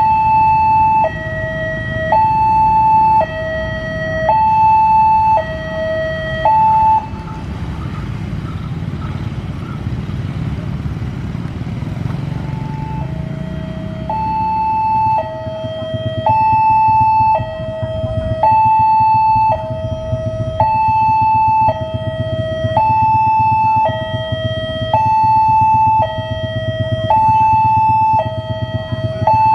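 Railway level-crossing warning alarm sounding its two-tone alternating signal, each tone about a second long, over the low rumble of a train. The alarm stops about seven seconds in and starts again about eight seconds later.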